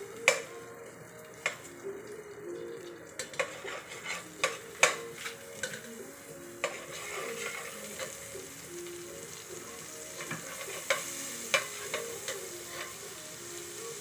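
Frying pan on the stove: a utensil clinks and knocks against the pan several times, then oil begins to sizzle about halfway through and keeps going as it is stirred.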